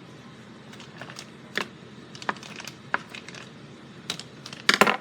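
Handling noises: a few light, scattered knocks and clicks, then a louder, quick cluster of clatter near the end.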